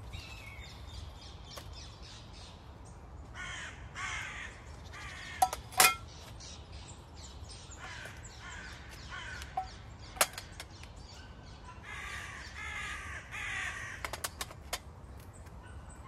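Crows cawing in a few bouts, with several sharp metallic clinks from camping cookware being handled, the loudest about six seconds in.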